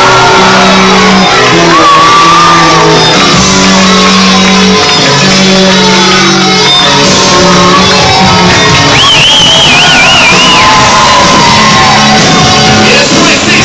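Loud music filling a large hall, with the crowd shouting over it.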